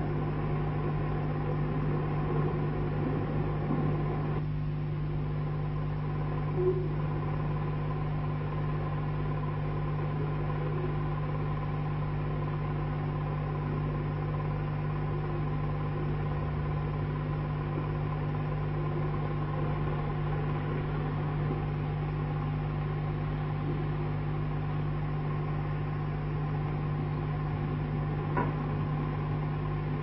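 Steady low hum over a faint hiss, unchanging throughout, with a couple of faint knocks: one about seven seconds in and one near the end.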